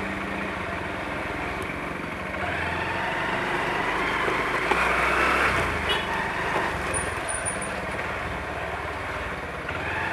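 Engine and road noise of vehicles moving through traffic, swelling for a few seconds in the middle, with a faint rising and falling siren wail in the background.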